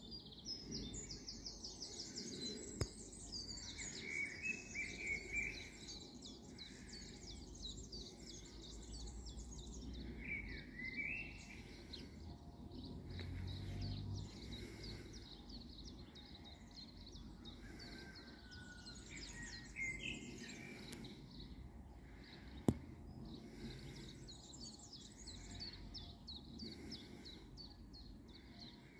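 Songbirds singing, with many quick chirps and trills, over a low steady outdoor rumble. A sharp click sounds about three seconds in and a louder one some twenty seconds later.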